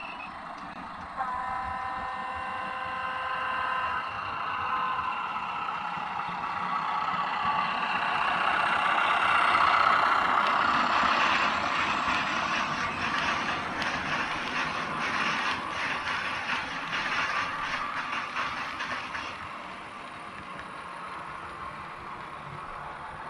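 HO-scale model train: a horn sounds for about three seconds, then the running sound builds and the train passes with rapid, regular clicking from the wheels and track, easing off near the end.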